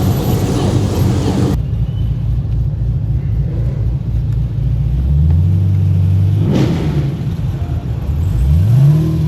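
Car engine rumbling at low revs, with a rev near the end whose pitch rises and then levels off.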